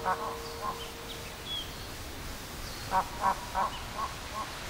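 A run of short, nasal honking calls from an animal or bird: two near the start, then five in quick succession about three seconds in, with faint high chirps of small birds over them.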